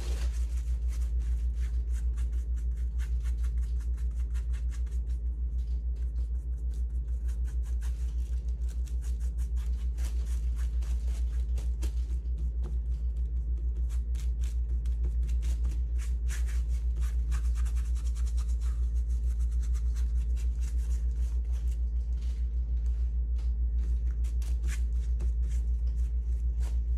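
Steady low rumble with many small clicks and taps over it.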